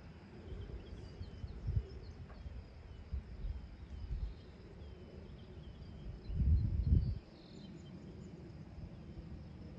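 Wind rumbling on the microphone in uneven gusts, the strongest lasting about a second, some six and a half seconds in, with faint bird chirps in the background.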